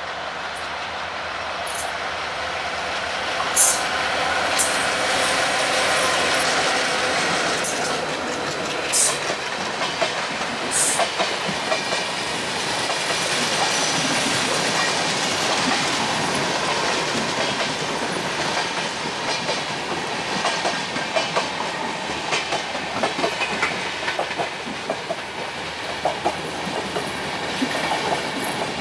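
Bangladesh Railway ALCO diesel-electric locomotive 6504 passing at speed, followed by a long rake of LHB passenger coaches rushing by. The coach wheels clatter over the rail joints in a steady run of clicks, with a few sharp high ticks in the first dozen seconds.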